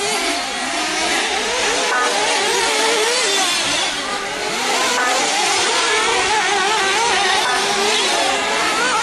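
Several nitro-powered 1/8-scale RC truggy engines racing at once, their overlapping buzzing notes rising and falling as the trucks accelerate and slow through the course.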